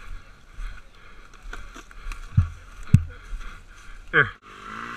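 Dirt bike being dragged and lifted over logs and brush: rustling and cracking branches with two heavy thumps about half a second apart, a little past the middle. Near the end a motorcycle engine starts running.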